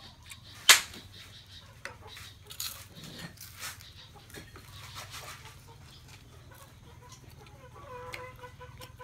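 Sounds of eating by hand from a plastic plate: a sharp click less than a second in, then scattered small clicks and rustles. A short animal call near the end.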